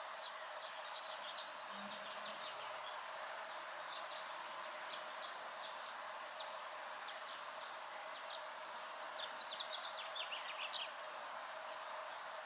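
Birds chirping in quick, short high notes that come thicker about three-quarters of the way through and stop near the end, over a steady background hiss.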